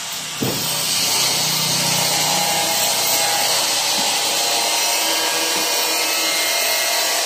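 Steady, loud hiss of metalworking in the shop. It starts about half a second in and holds even throughout.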